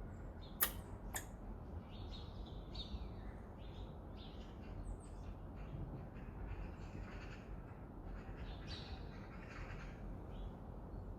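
Crows cawing repeatedly, a string of short harsh calls, after two sharp clicks about half a second and a second in.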